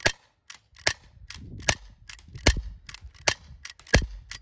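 Umarex Glock 19X CO2 blowback airsoft pistol firing a string of about six shots, roughly one every 0.8 s, each a sharp crack, with fainter clicks between them.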